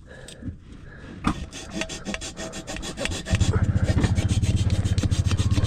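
Beta 300RR two-stroke dirt bike engine starting about three seconds in and running with a rapid, even beat, after a few light clicks and rustles. The hole in its exhaust pipe has just been plugged with a wooden stick hammered in and sawn off.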